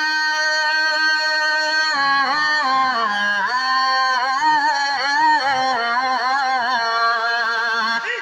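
A male voice sings a naat, holding one long note for about two seconds. It then moves into a wavering, ornamented melismatic run on the drawn-out word.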